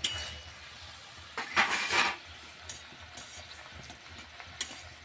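Spatula stirring and scraping raw mango pieces in simmering sugar-and-jaggery syrup in a metal pan. There is a click at the start, a louder scrape of about half a second a second and a half in, and a light tap near the end.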